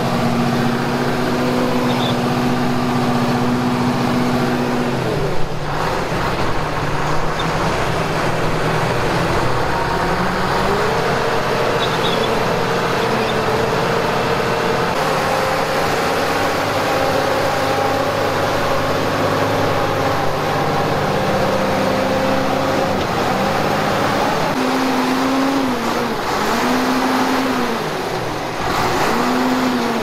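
Diesel engine of a John Deere log skidder running under work, steady at first, then revving up and down in several short swells near the end as the machine pushes stumps with its blade.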